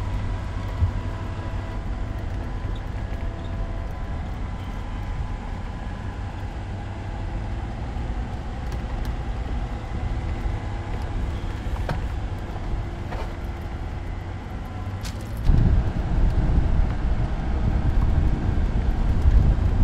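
Mercedes-Maybach G 650 Landaulet's twin-turbo V12 running steadily as the truck drives slowly off road, a low rumble that turns suddenly louder and rougher about three-quarters of the way in.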